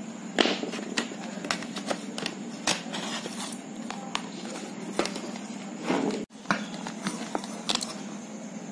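Irregular small clicks, taps and rattles as an electric egg boiler is taken apart: a screwdriver working on a wire terminal, and the plastic base and steel heater plate knocking together, over a steady low hum. There is a louder scrape-like handling noise about six seconds in.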